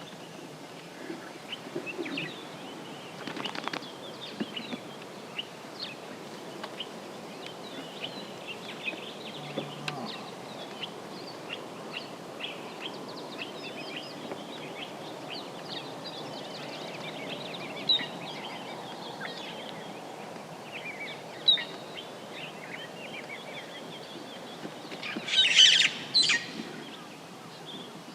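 Wild birds calling: a dense chorus of many short chirps and whistles, with two sharp louder notes in the second half and a loud double burst of harsh calling near the end.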